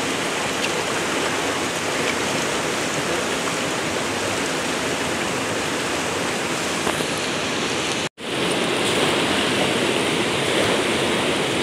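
Fast-flowing mountain river rushing over stones: a steady, even rush of water, broken by a very brief dropout about eight seconds in.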